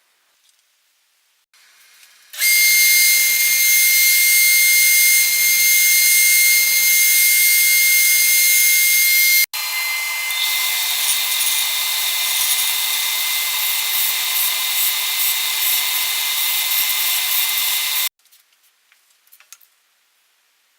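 Drill press running and drilling a 7/16 inch hole through a small plywood knob blank, a steady loud whine with a hiss over it. It runs for about seven seconds, breaks off abruptly, then continues at a slightly different pitch for about eight more seconds before stopping.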